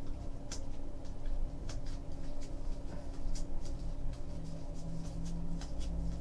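Baseball trading cards being handled and flipped through by hand: a loose string of soft ticks and slides of card against card, over a steady low hum.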